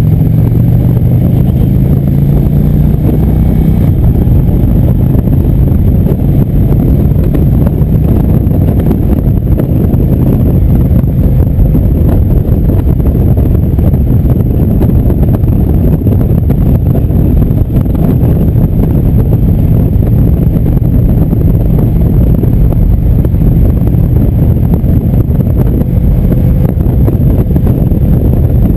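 Indian motorcycle's V-twin engine running at steady cruising speed, with heavy wind noise on the microphone. The engine note is clearest in the first few seconds, after which the wind mostly covers it.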